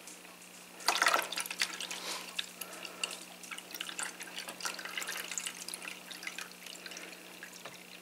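Water poured into a Black+Decker drip coffee maker's water reservoir, starting with a splash about a second in and going on as uneven trickling and splashing. It tops up white vinegar to the 5-cup line for a descaling cycle.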